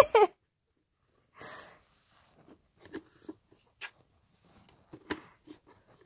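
Recorded fart sound effect from a novelty butt-shaped coin bank's speaker, a short loud burst at the very start. After it come a short faint hiss and a few light clicks and knocks from a hand handling the plastic bank.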